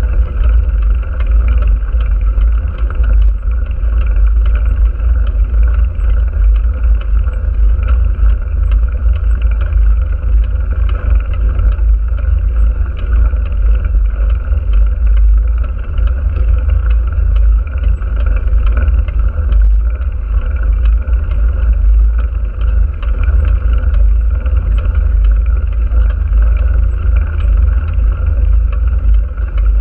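Wind rumbling heavily and steadily on the microphone of a camera mounted on a moving vehicle, over a steady noise of travel along the road.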